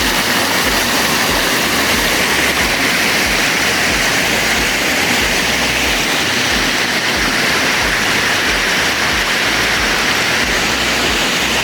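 Loud, steady rush of water from a cascading forest stream or small waterfall.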